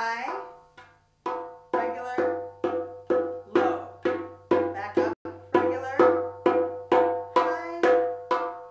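Darbuka (goblet drum) struck with the fingertips in an even run of single strokes, about two a second, each ringing briefly. The strokes are an exercise working through the drum's kick, high, regular and low finger strokes.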